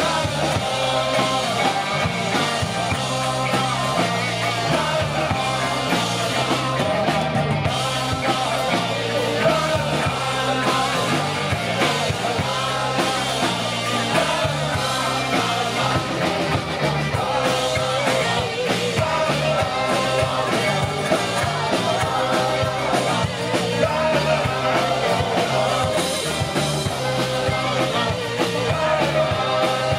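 A live rock band playing through a PA system, with a singer over electric guitar, acoustic guitar, bass guitar and a drum kit.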